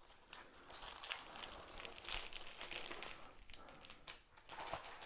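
Plastic packaging crinkling and rustling as it is handled, with small irregular clicks and crackles.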